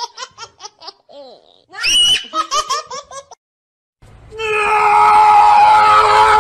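Squealing laughter: a high shriek followed by a quick run of 'ha-ha' pulses, heard twice. After a short silence comes a long, steady, shrill held cry, like a scream.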